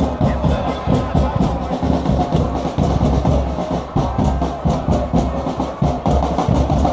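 Drums beating a steady rhythm in a stadium crowd, over a dense crowd din.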